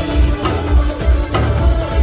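Live band playing: a heavy, pulsing bass line with regular drum hits.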